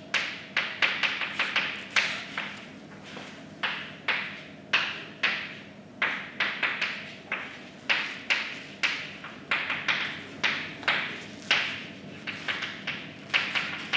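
Chalk writing on a blackboard: an irregular run of sharp taps and short scratchy strokes, a few a second, with brief pauses between words.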